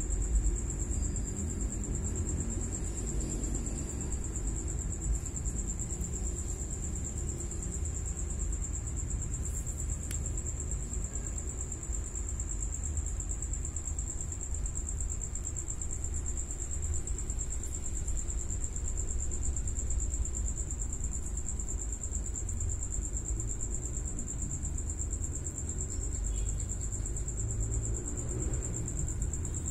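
Continuous high-pitched insect trill, steady throughout, over a low constant rumble.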